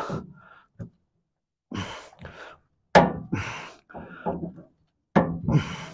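Effortful breathing while hand cutters work through a rubber hose at the fuel tank, with a sharp snip about three seconds in.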